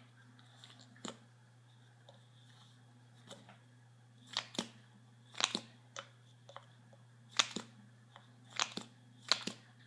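Plastic clicks and scrapes from an Essence clear mascara as its wand is worked in and out of the tube's neck: one click about a second in, then a run of short sharp clicks, many in quick pairs, from about four seconds in.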